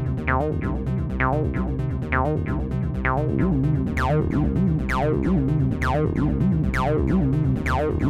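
Background electronic music: a synthesizer playing quick, evenly spaced notes, about three a second, over a steady beat.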